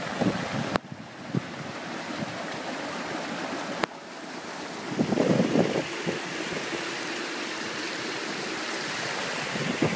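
Floodwater swishing and sloshing around a vehicle wading slowly through a flooded street, with wind buffeting the microphone.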